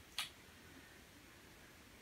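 Near silence in a small room, broken by a single short click about a quarter of a second in.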